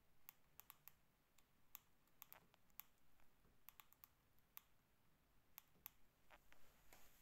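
Faint, irregular sharp clicks of a pet fancy mouse nibbling and cracking seeds from its food mix.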